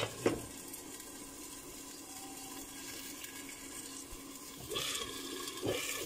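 Chicken, potato and ketchup sauce simmering in a pan under a glass lid, a steady bubbling hiss with a low hum beneath it. The glass lid clinks into place at the start, and there are a couple more light knocks near the end as it is moved on the pan.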